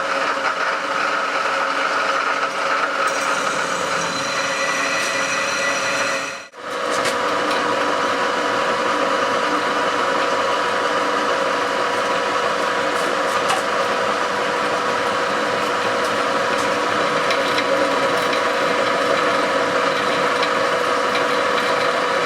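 Drill press running steadily, drilling 1/2 inch holes through 1/2 inch steel plate: a continuous hum with a few steady whining tones, broken off briefly about six and a half seconds in.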